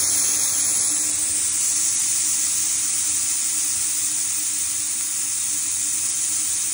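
Fortador Pro Max steam cleaner's spray gun blowing a steady hiss of steam in detergent mode, with the machine's low steady hum underneath.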